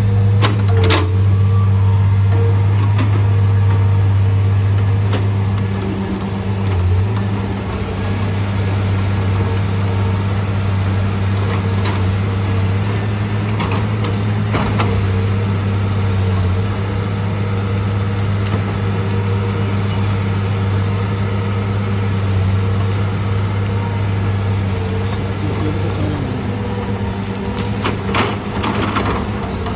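Caterpillar 325 log loader's diesel engine running steadily under hydraulic load while it swings and grapples logs, easing off a little about six seconds in. Scattered knocks as the grapple handles the logs, several close together near the end.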